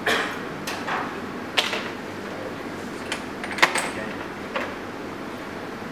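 A bristle paintbrush scratching over paper taped to a drawing board in about seven short strokes, the firmest at the start and about three and a half seconds in, over a steady low room hum.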